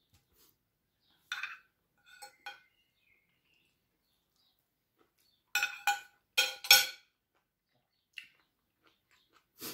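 Metal fork and spoon clinking and scraping against a plate while food is cut and picked up: scattered short clinks, the loudest cluster about six to seven seconds in.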